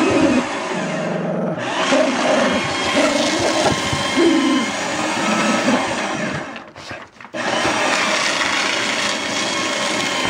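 Electric paper shredder motor running steadily, stopping for under a second about two-thirds through and then starting again, while a Jack Russell terrier growls and barks at it in short repeated bursts.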